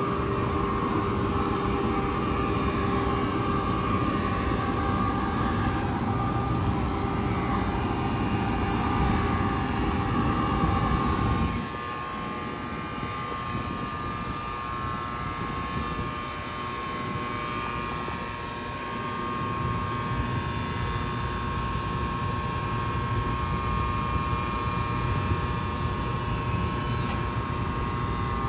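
NJ Transit ALP-46A electric locomotive running its onboard equipment, a steady drone of blowers with a whine on top. A little over a third of the way in, the low rumble drops away suddenly and the whine shifts pitch, then the drone carries on more softly.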